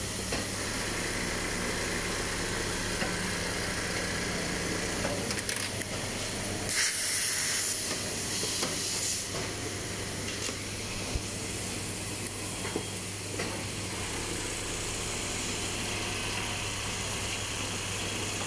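Automatic cap-strap sewing machinery running, a steady hum under a constant hiss. Louder bursts of compressed-air hiss come about seven and nine seconds in, with a few light clicks.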